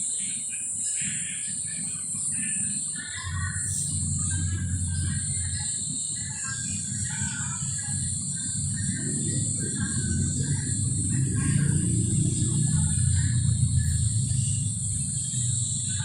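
Outdoor ambience: birds chirping over a steady high insect drone, with a low rumble that comes in about three seconds in and grows strongest toward the end.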